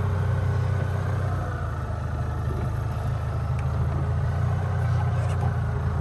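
Golf cart driving along, a steady low rumble.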